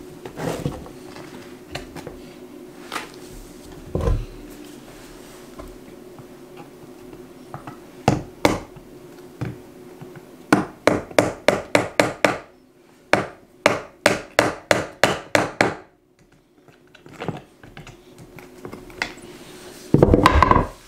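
Hammering on wood: a few single knocks, then about halfway through two quick runs of roughly eight blows each, and a louder clatter near the end.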